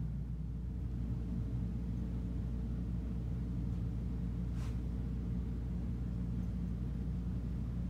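Steady low indoor hum and rumble, with one short tick about four and a half seconds in.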